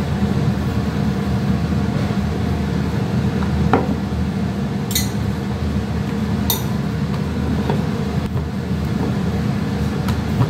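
Steady low mechanical hum, with a few light knocks and clicks as a wooden rolling pin and a small dish are handled on a wooden rolling board.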